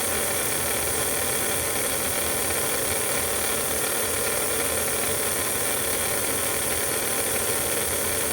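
Mega G slot car's small electric motor running flat out on a dyno, a steady whir with a high hiss, while it is being warmed up for a baseline reading.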